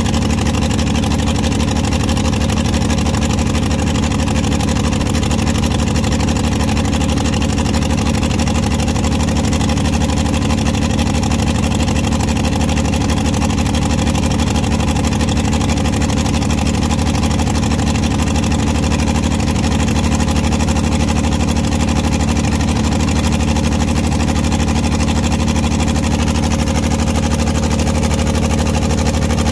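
Oliver 70 tractor's six-cylinder gasoline engine running steadily at an even speed, with its belt pulley turning.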